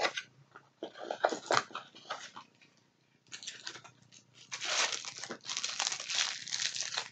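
A small knife box being opened by hand: scattered handling clicks and rustles at first, then from about three and a half seconds in a few seconds of tearing and crinkling packaging.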